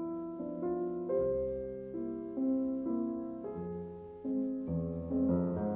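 Background piano music: a slow, gentle melody of single notes and chords, about two a second, each note fading after it is struck.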